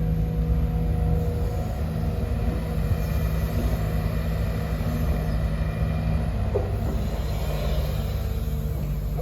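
SH210 excavator's diesel engine running steadily with a low rumble, and a brief squeak about six and a half seconds in.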